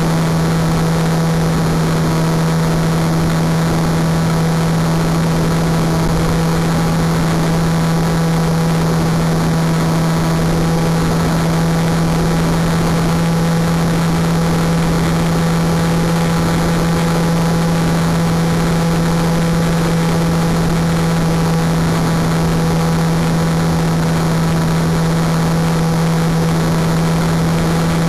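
Electric motor and propeller of a Wing Dragon 4 RC plane in flight, giving a loud, steady drone at an unchanging pitch over a constant airflow hiss.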